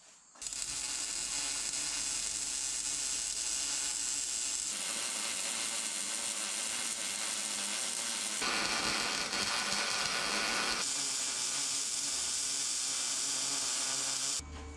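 MIG (wire-feed) welding arc on steel, a steady crackling hiss that starts about half a second in and cuts off just before the end, shifting tone slightly a few times.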